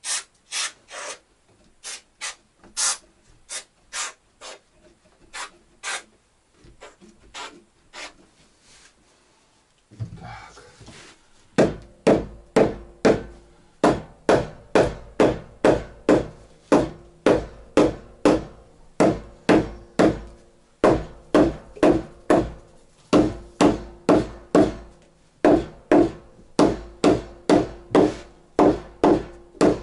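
Repeated hand-tool blows on wood. Lighter, irregular taps for the first ten seconds, then steady strikes about twice a second, each with the same hollow ringing tone.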